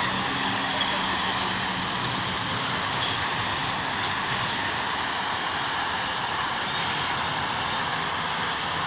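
Steady road traffic noise with a low engine hum underneath, and a few faint clicks.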